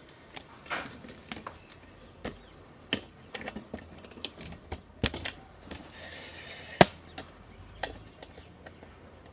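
Irregular clicks and taps from a handheld camera being handled, with a short hiss about six seconds in and one sharp, loud click just after it.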